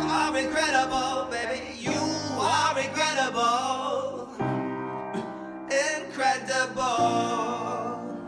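Music: a male singer's wordless, gliding vocal runs over sustained keyboard piano chords, played live with looping gear.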